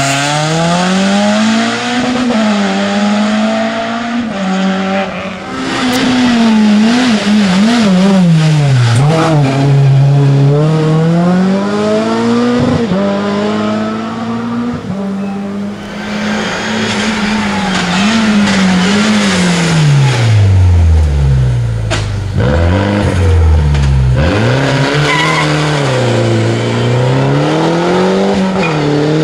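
Rally car engines revving hard, the pitch rising and falling again and again through gear changes and lifts off the throttle. The red Citroën Saxo drives away and the next car, a Peugeot 207, arrives near the end.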